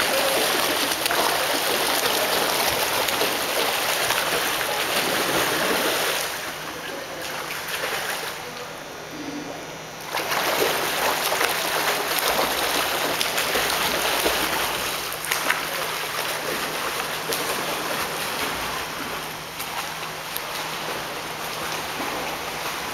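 A swimmer's strokes splashing through pool water. The splashing drops away for a few seconds about a quarter of the way in, during the turn at the wall, then picks up again.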